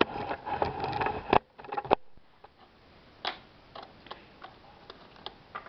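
Plastic Lego bricks clattering and clicking as they are handled: a dense rattle for the first second or so, two sharp clicks, then a few scattered faint taps.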